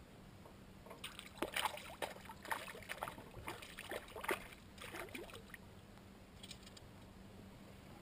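A hooked trout thrashing and splashing at the water's surface beside the boat as it is reeled in, a quick irregular run of splashes from about a second in that dies away past the middle.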